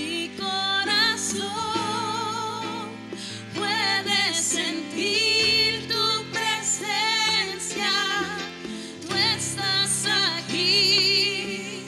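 Slow Spanish worship song: a singer's voice with wide vibrato holds notes and sings runs between the lyric lines, over sustained instrumental chords.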